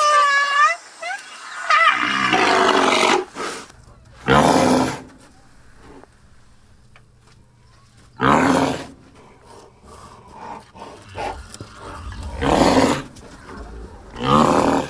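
Rhinoceros calls: high squealing cries that slide up and down in pitch over the first three seconds, then four loud, short snorting blasts a few seconds apart.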